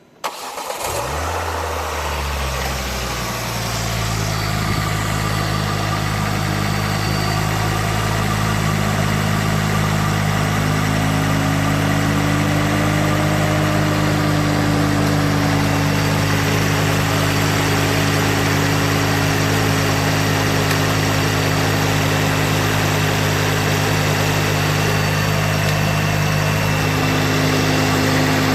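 Ford Focus ST Mk2's 2.5-litre turbocharged five-cylinder engine starting: it catches almost at once, revs up and settles within a few seconds to a steady idle.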